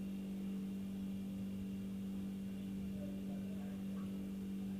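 A steady low hum at one even pitch, with fainter tones above it and no other sound.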